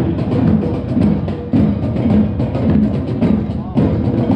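Music with a prominent drum beat.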